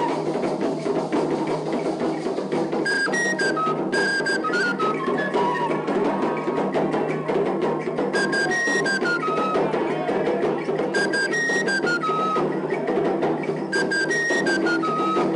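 Traditional drumming: drums beating a dense, fast rhythm under a high piped melody of a few stepped, falling notes that comes back several times.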